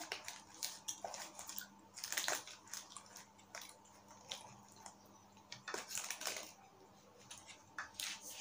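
Close-up eating sounds: a metal fork scraping and tapping in a foil tray of lasagna, then chewing with mouth noises, as scattered short clicks and crackles.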